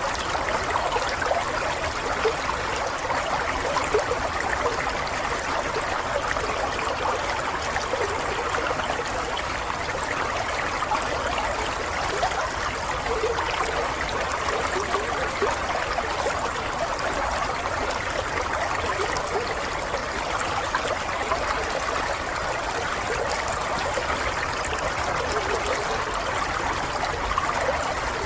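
Water flowing and trickling steadily, a small stream babbling over stones, with little gurgles and bubbles in the rush.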